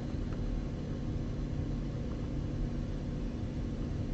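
Steady low background rumble and hiss with a faint hum, and no distinct sound events.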